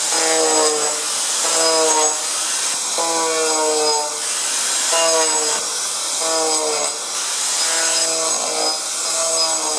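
Power tool fitted with a pressed-diamond cutter running on a lacquered wooden floor, stripping the lacquer. A steady grinding hiss runs throughout, and the motor's pitch slides and recovers about once a second as the cutter is worked back and forth against the wood.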